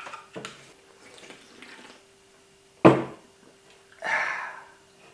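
A man drinking an energy drink: soft liquid and handling sounds, with one sharp knock about three seconds in.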